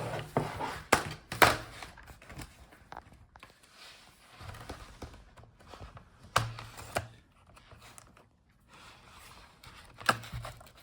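Plastic snap clips of a laptop's bottom case popping loose as a plastic pry tool works along the seam between the bottom case and the palmrest, with light scraping in between. Sharp snaps come in pairs about a second in and about six seconds in, and once more near the end.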